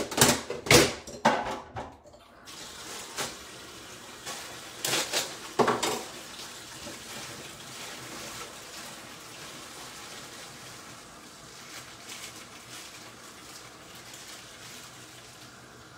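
Pots and utensils knocking several times in the first couple of seconds and again about five seconds in, over a steady water-like hiss.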